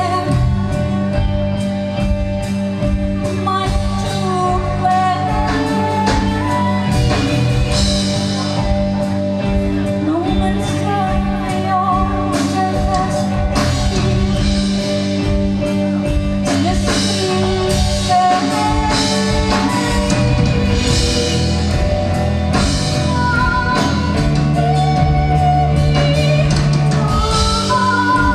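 A live rock band playing a song, with a sung vocal melody over sustained guitar chords and a steady drum beat.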